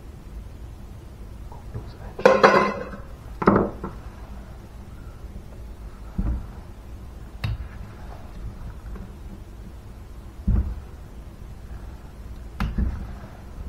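Metal tools and small engine parts clinking and knocking against a Simson moped engine's casing as it is taken apart by hand: about six separate knocks and clinks, the loudest two a few seconds in with a short ring.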